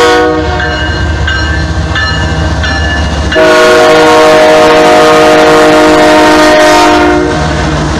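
Nathan K5 five-chime air horn on passing Union Pacific diesel locomotives: a short blast at the start, then a long, loud blast from about three and a half seconds in until about seven seconds in. Underneath are the low rumble of the diesels and a locomotive bell ringing about twice a second.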